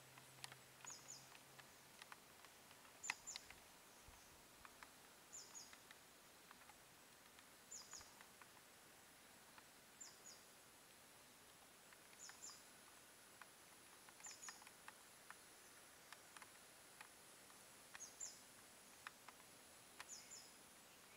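Faint outdoor ambience: a bird giving a short, high double chirp about every two seconds, with scattered faint clicks.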